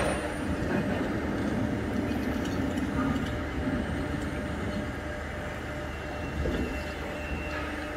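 Steady low rumble of a vehicle engine or heavy machinery, slowly easing off.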